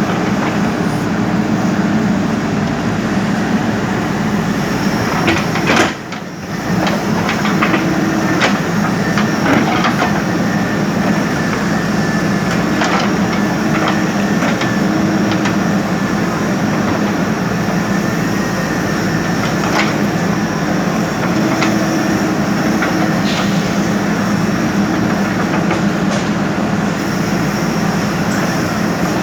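JCB backhoe loader's diesel engine running steadily under load, with scattered knocks and clanks of the working machine. The sound drops out briefly about six seconds in.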